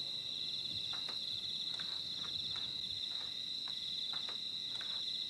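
Crickets chirping in a steady, fast-pulsing high chorus, with a few faint soft taps scattered through it.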